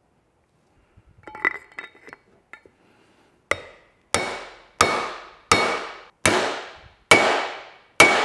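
Hammer blows on a bearing driver tool, seating a motorcycle steering stem bearing: a few light metallic clinks, then seven sharp, evenly spaced strikes, each ringing briefly.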